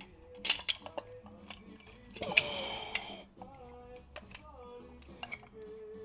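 Metal tools clinking and scraping against a brake caliper and a used brake pad while a piston compressor is set up, with sharp clicks and a louder scraping rattle a little over two seconds in. Faint background music plays underneath.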